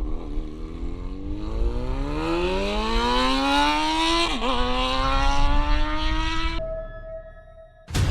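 A motor vehicle engine revving up, its pitch climbing smoothly, dipping briefly about halfway through, then holding steady before cutting off. A sudden loud noise starts just before the end.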